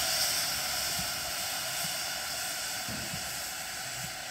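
Steam locomotive hissing steadily as steam blows out low at the front by the cylinders, with its cylinder drain cocks open. The hiss eases off slowly, with a few faint low thumps under it.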